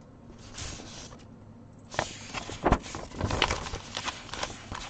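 Paper and plastic packaging of a cross stitch kit being handled: a soft rustle, then from about two seconds in a busy run of crinkles, taps and clicks as the printed chart and packaged canvas are shifted.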